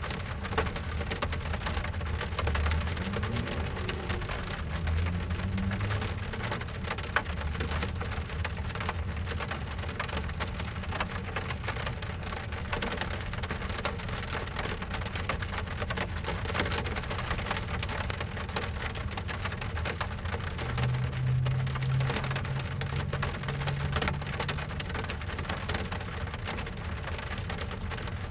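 Steady rain falling, a dense even patter, with a low rumble swelling twice, once a few seconds in and again about twenty seconds in.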